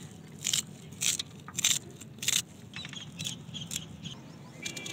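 Kitchen knife chopping a bunch of fresh mint leaves held in the hand, a series of short crisp cuts roughly two a second, the later ones fainter.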